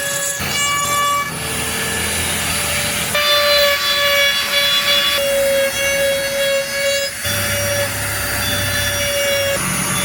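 Small power carving tool whining steadily as it grinds into wood, with a rough rasp under the whine. Its tone shifts abruptly every second or two.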